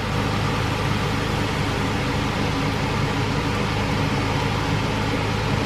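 Diet cola pouring from a can into a hot frying pan of chicken and vegetables, hissing and fizzing steadily as it foams, over a low steady hum.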